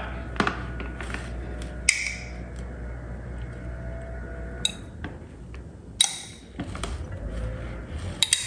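Scattered clinks and taps of a metal spoon against a glass salad bowl as chickpeas are spooned in, with a brief rustle about six seconds in.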